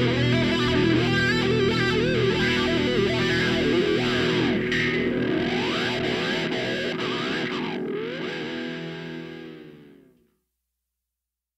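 Background rock music on distorted electric guitar, with sliding bent notes in the middle. It fades out about ten seconds in, leaving silence.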